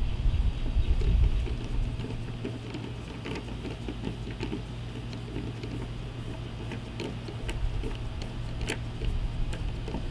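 Hand screwdriver tightening the screw that locks a paddle board's centre fin into its fin box, the screw biting into the metal plate underneath: scattered small clicks and scrapes over a steady low hum.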